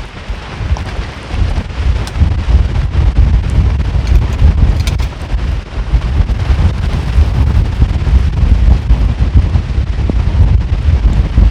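Strong wind gusting and buffeting the microphone.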